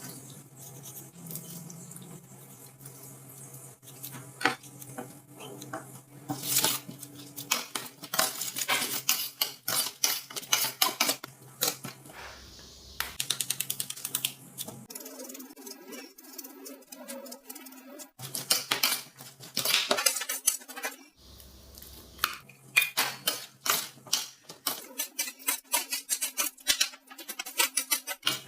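Utensils clinking, knocking and scraping against bowls and dishes, in quick runs of sharp clicks, broken by abrupt cuts between short segments.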